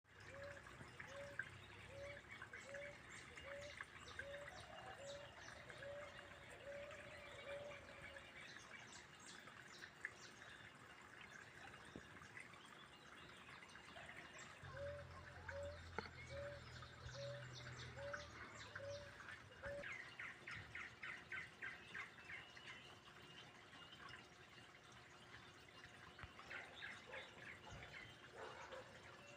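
Faint mixed birdsong: many short high chirps, a low note repeated about twice a second in two runs of several seconds, and a rapid trill about twenty seconds in.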